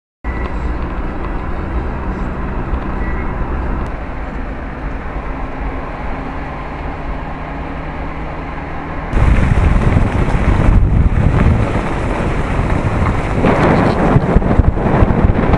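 A steady low motor hum under wind noise. About nine seconds in, a sudden cut brings louder wind buffeting the microphone, with water noise.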